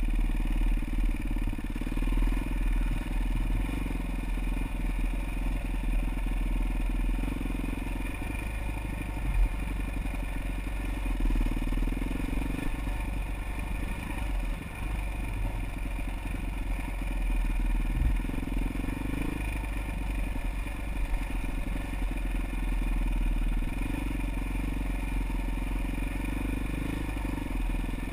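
Motorcycle engine running as the bike is ridden along a trail, its note rising and easing with the throttle every few seconds, over steady rattling and clatter, with a sharp knock about nine seconds in and another around eighteen.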